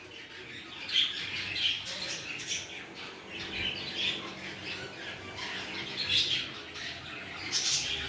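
Budgerigars chirping and chattering in short, scattered calls, with no steady song.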